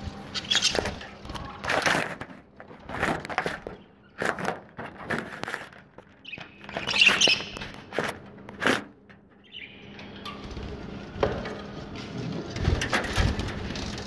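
Budgerigars chirping amid scattered short rustles and knocks.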